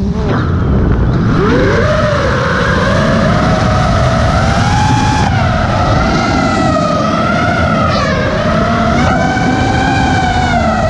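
FPV racing quadcopter's electric motors and propellers whining, recorded from the drone's own onboard camera. The pitch climbs steeply in the first second or so as throttle comes back in after a flip, then holds high, wavering up and down with the throttle.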